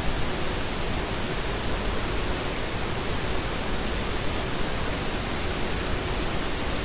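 Steady, even hiss of background noise with no distinct sounds in it.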